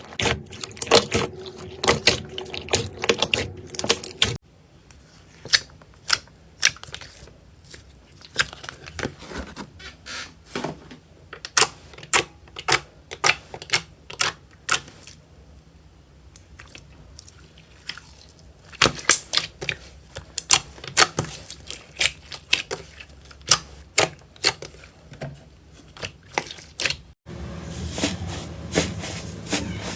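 Slime being squeezed and poked by hand, making a quick, irregular run of sharp clicks and crackling pops. The sound changes abruptly twice, a little after four seconds in and near the end.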